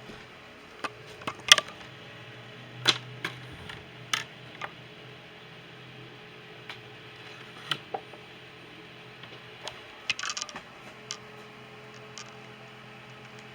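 About a dozen irregular sharp clicks and knocks, the loudest about a second and a half in and a quick cluster near the ten-second mark, over a faint steady hum.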